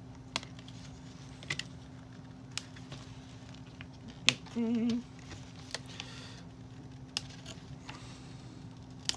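Scattered sharp clicks, about seven in all, as small staples are pried and snipped off a doll's clothing and its cardboard backing, over a steady low hum. A brief wavering hummed note about halfway through.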